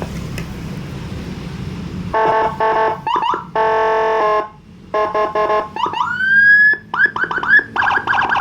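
Police-escort electronic siren, a CJB200 200-watt module with a Whelen HHS tone kit driving a TS300 horn speaker, switching through its tones after about two seconds of low hum. It gives short steady horn-like blasts, then a rising wail about six seconds in, then quick up-and-down yelps near the end.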